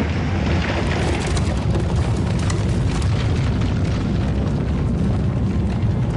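A deep, continuous underground rumble, with scattered knocks and clatters as lumps of coal and rock are shifted by hand in a collapsed mine gallery.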